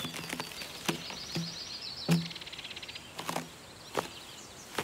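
A long steel bar knocking and chopping into a fire-scorched log as burnt bark is stripped off: a series of woody knocks, the loudest about two seconds in. A bird trills high over the first half.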